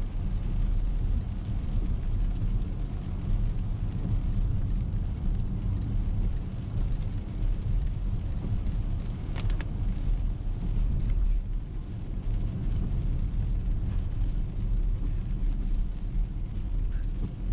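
Steady low rumble of a car driving on a wet road, heard from inside the cabin: tyre and engine noise with a fainter hiss over it, and a single sharp click about halfway through.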